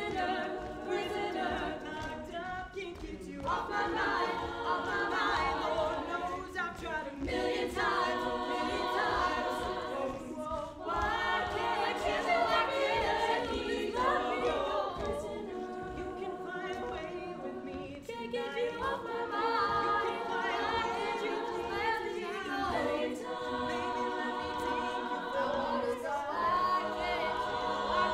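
All-female a cappella group singing a pop arrangement in close harmony into microphones, with layered voices and no instruments.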